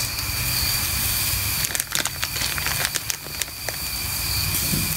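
Burgers and hot dogs sizzling over charcoal on a kettle grill: a steady hiss with a scatter of crackles and pops between about two and four seconds in.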